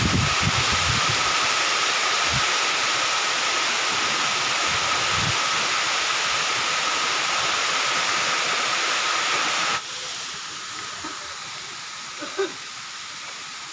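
Waterfall cascading down a rock face into a pool: a steady rush of falling water that cuts off abruptly about ten seconds in, leaving quieter outdoor background with one brief soft knock near the end.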